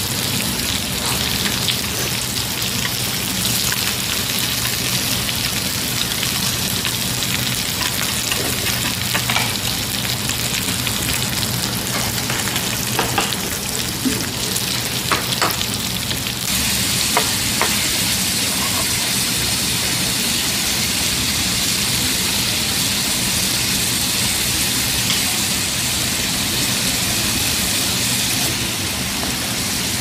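Pork belly sizzling on a barbecue grill: a steady hiss with a few light clicks about halfway through.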